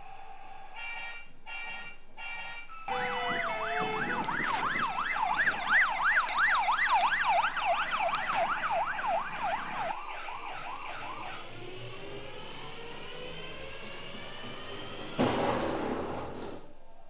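Toy ambulance's built-in electronic sound module: a few short beeping tones, then a fast up-and-down yelping siren wail starting about three seconds in and fading out by about eleven seconds. Near the end a short rough rushing noise starts suddenly and dies away.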